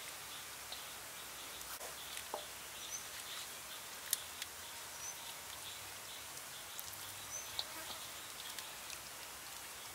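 Raw chicken legs being handled and set in a stainless steel bowl, giving a few light clicks and taps on the metal, the sharpest about four seconds in. Under them is a faint steady hiss with three short bird chirps.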